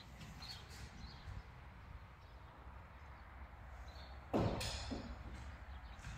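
Faint scattered clicks and knocks in a bare, empty room, with one sharp knock that rings briefly about four and a half seconds in and a lighter knock just after it.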